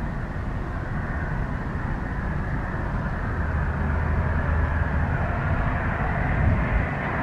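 Jet airliner engine noise: a steady rumble that slowly grows louder.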